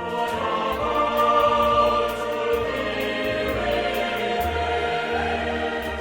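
Choir singing held, sustained notes over instrumental accompaniment with low held bass notes.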